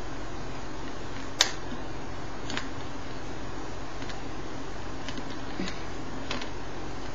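A pet's soda-pop noise: about six short, sharp popping clicks at irregular intervals, the loudest about a second and a half in, over a steady hiss.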